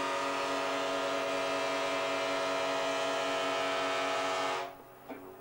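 Ship's horn sounding one long, steady blast that cuts off suddenly about four and a half seconds in.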